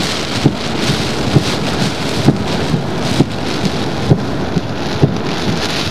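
Hurricane rain and wind: a loud, dense, steady hiss, with a short dull thump about once a second.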